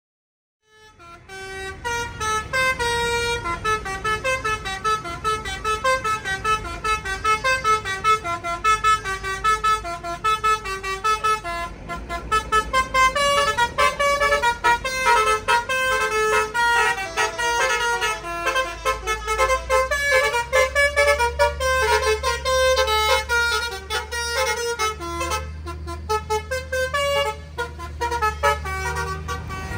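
Tour bus's multi-tone 'telolet basuri' musical horn playing a rapid tune of short, changing notes, starting about a second in. The bus's engine runs underneath and grows louder in the second half as the bus comes closer.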